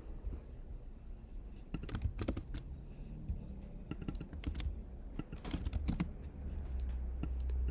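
Typing on a computer keyboard: scattered keystrokes in short, irregular runs.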